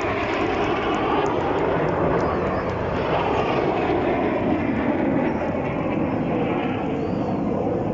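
Military jets in a formation flypast, a steady jet roar.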